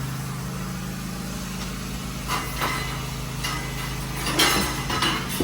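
An engine or motor idling with a steady low hum, with a few short knocks and clatters about two seconds in and again near the end.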